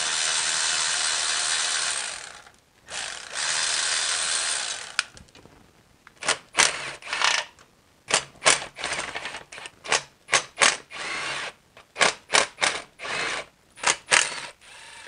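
Cordless electric ratchet spinning out oil pan bolts: two runs of about two seconds each, then from about six seconds in a string of short quick bursts and clicks as the bolts are worked loose.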